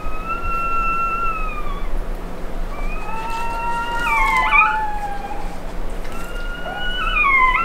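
Dog whining: a string of long, high, wavering whines, one to two seconds each, with a sharp wobble in pitch about halfway through and a falling whine near the end.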